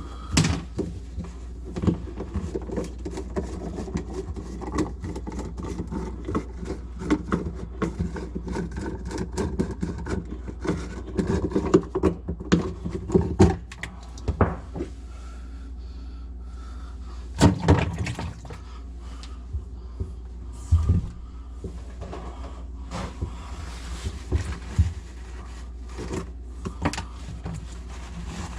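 Irregular knocks, clicks and clattering of sink drain parts being handled and fitted, loudest in clusters around the middle, over a steady low hum.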